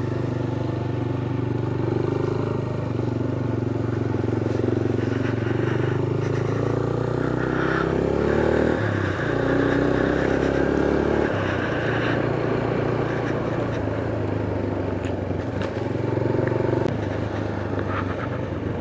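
Motorcycle engine running steadily while riding, its note shifting about halfway through, with wind and road noise.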